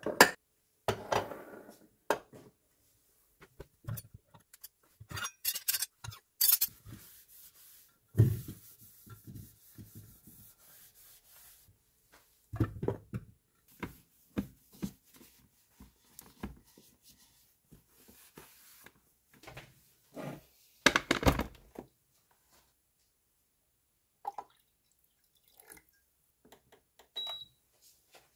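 Kitchen cleaning handling noises: glass storage jars set down and clinking on the countertop, scattered knocks and clicks, and a paper towel rubbing over an electric kettle. A short high electronic beep near the end.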